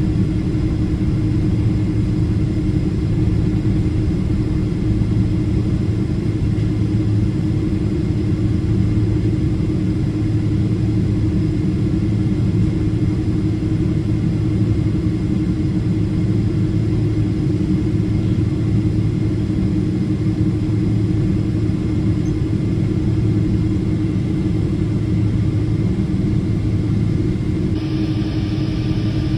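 Boeing 777-200ER jet engines and airflow heard from inside the economy cabin: a steady, loud rumble with a constant low drone. The high hiss shifts slightly near the end.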